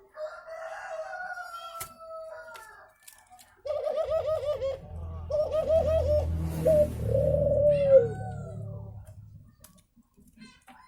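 Male brenggolo bird calling: a drawn-out call, then from about four seconds in a run of quick, wavering notes that are loudest near the end. A low hum sounds underneath the later notes.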